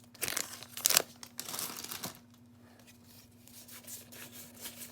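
Foil wrapper of a Pokémon 151 booster pack crinkling and tearing as it is opened by hand, in short crackles for about two seconds, then fainter scattered ticks near the end.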